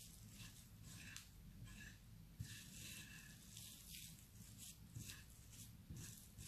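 Hands pressing and kneading a crumbly ground-almond and butter dough on a plate: faint, irregular rustling and squishing.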